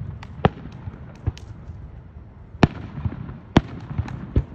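Fireworks going off: a string of sharp, irregular bangs, loudest about two and a half and three and a half seconds in, with fainter crackles and pops between them.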